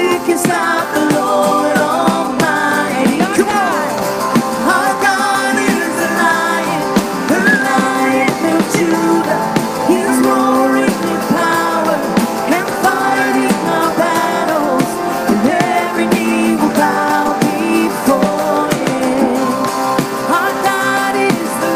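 Live worship band music: acoustic guitar with several singing voices, playing steadily.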